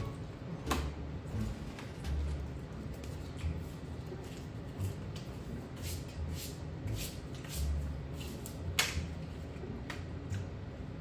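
Scattered light clicks and taps from UNO cards being drawn and laid down on a table, one sharper snap near the end, over the low bass notes of background music.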